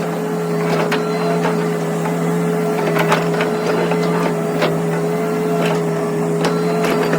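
Hitachi mini excavator running at a steady engine speed with a constant hum and whine, with irregular clicks and knocks over it while the pakura grapple attachment is worked.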